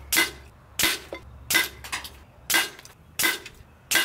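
FX Crown PCP air rifle firing a quick string of shots, five sharp pops in four seconds, each followed shortly by a fainter click.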